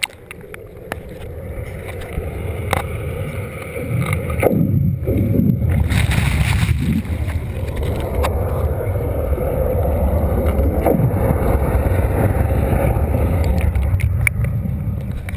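Churning, bubbling water heard from under the surface: a muffled low rumble that builds over the first few seconds, then holds steady.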